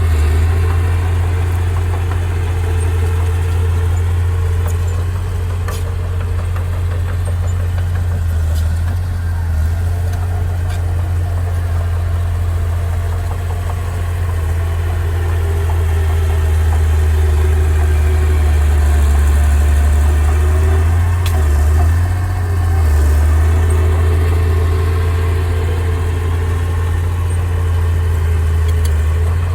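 Heavy earthmoving machine's diesel engine running steadily with a deep drone, briefly faltering about two-thirds of the way through.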